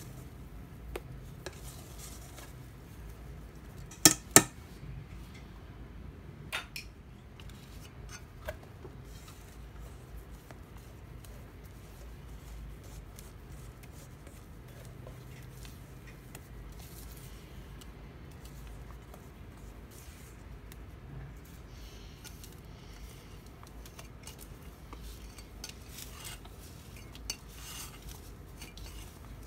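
Wire whisk and silicone spatula scraping and knocking against a stainless steel mixing bowl as egg batter is folded, with two sharp metallic clinks about four seconds in and a few lighter ticks after.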